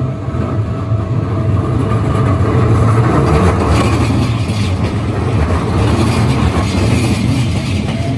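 Keikyu Line electric train running through a level crossing: a loud, steady rumble of wheels on rail, with scattered clicks and clatter in the second half.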